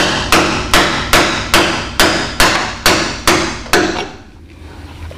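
Hand hammer striking a steel chisel against the riveted rear spring hanger bracket on a 1996 Ford F-150 frame, cutting off the rivet heads to free the old hanger. About ten sharp blows come at roughly two and a half a second, each ringing briefly, and they stop about four seconds in.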